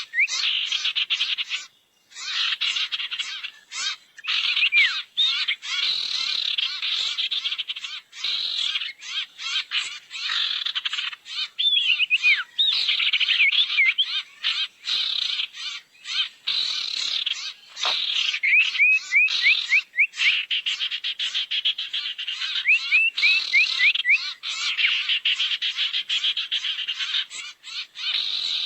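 Lure recording of sirtu bird calls: dense, fast chattering mixed with quick runs of short rising whistles, going on almost without pause.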